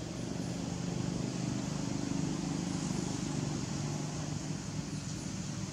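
A motor engine humming steadily at low pitch, swelling about half a second in and easing off near the end, over a steady outdoor hiss.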